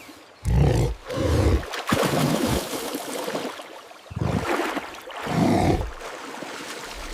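Cinematic sea-storm sound effects: surging, splashing water with four heavy, deep booms, two about a second in and two more about four to five seconds in.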